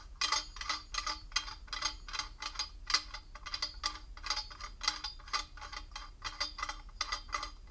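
Rapid, irregular clicking as the tub drain strainer is unscrewed out of the standing-waste tub shoe, the threaded parts ticking as they turn.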